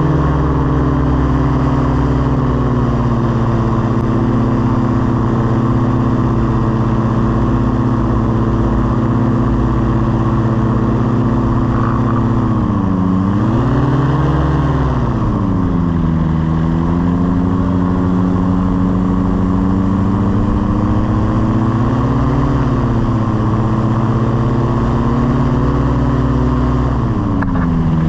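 Small propeller aircraft engine running steadily in flight. Its speed dips and comes back up about halfway through, wavers again later, and drops once more near the end.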